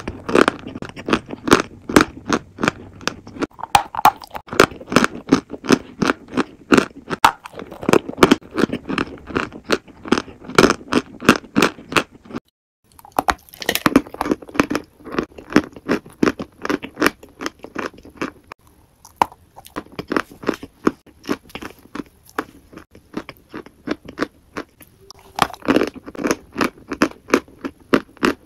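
Close-miked eating: dense, rapid crunching and chewing, with many sharp crunches. It breaks off briefly about twelve seconds in, then resumes with a faint high hiss behind it.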